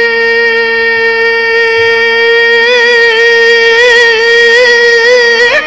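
Qawwali singing: a male voice holds one long high note, steady at first, then wavering in small ornaments from about halfway and moving off the note just before the end, over a fainter steady lower drone.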